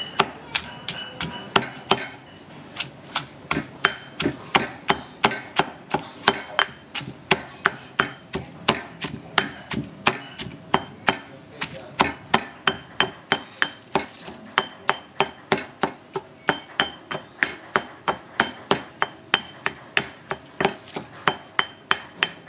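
Food being chopped or pounded in a kitchen: a steady run of hard strikes, about two to three a second, each with a slight ring.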